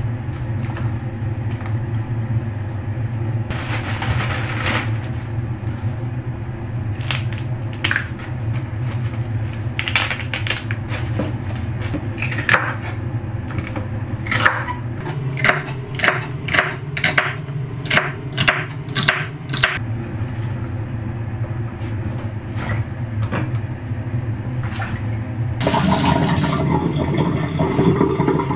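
Kitchen knife cutting vegetables on a bamboo cutting board. The blade strikes the board in sharp chops, with a regular run of about two chops a second through celery stalks midway. A steady low hum runs underneath, and a louder rushing noise starts near the end.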